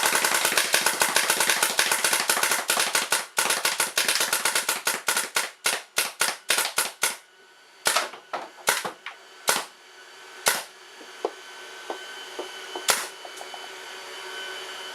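Azodin Blitz paintball marker firing reballs in CFOA, its near-full-auto mode capped around 10 balls per second: a long rapid string of shots with a brief break a little over three seconds in. The string thins out after about seven seconds, and a few single shots follow a second or more apart.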